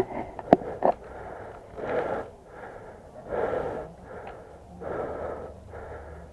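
Heavy, rhythmic breathing close to the microphone, an in-and-out puff roughly every 0.7 seconds. Two sharp clicks sound within the first second.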